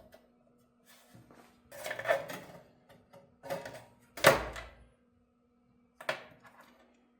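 Sheet-metal server chassis parts being handled and fitted: a series of metallic clanks and scrapes, the loudest a heavier thud a little over four seconds in.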